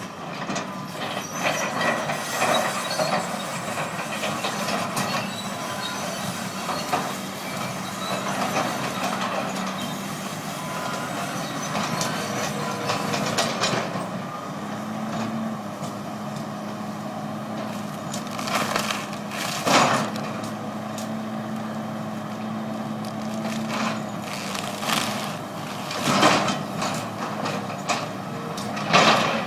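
A heavy engine running steadily, its pitch stepping up slightly for several seconds midway, with several sharp knocks and thuds of wood at intervals.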